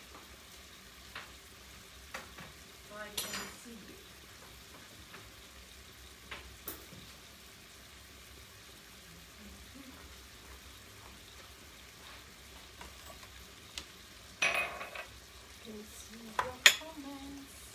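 Artichoke slices sizzling quietly in a pan of olive oil and a little pasta water, a faint steady frying sound. A few sharp knocks and clatters come through it, the loudest near the end.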